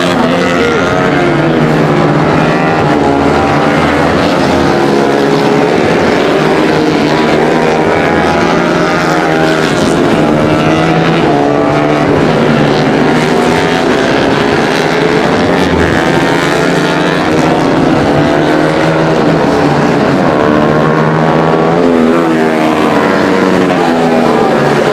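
Several tuned Honda CRF150L supermoto bikes, bored to 180cc, racing past. Their single-cylinder four-stroke engines rev up and down through the gears, with overlapping pitches.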